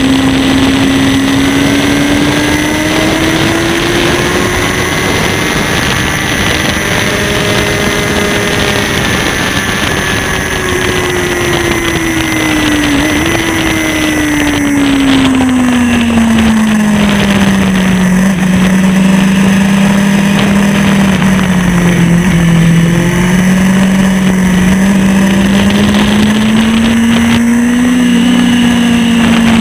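Sport motorcycle engine running hard on a racetrack, heard from on board, its note rising and falling with the revs through the corners: it climbs early on, sinks to its lowest about halfway through, then climbs again near the end. Wind noise rushes steadily underneath.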